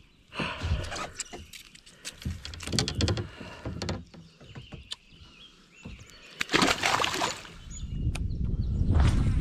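Handling noises from a largemouth bass and a frog lure being unhooked and cleared of weed: scattered small clicks and rustles, then a louder rustling burst about two-thirds through, followed by a steady low rumble near the end.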